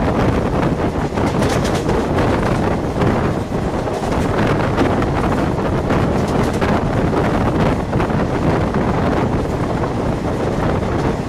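Wind buffeting the microphone held out of a moving train, over the steady rumble of the train running at speed on the rails.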